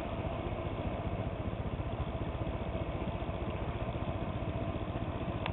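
The solar air heater's fan running steadily, blowing air out through the vent with an even whir and a faint fluttering pulse.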